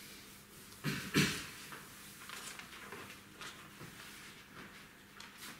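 Chalkboard being wiped and a person walking across the room: faint scuffs and rubbing, with two louder knocks close together about a second in.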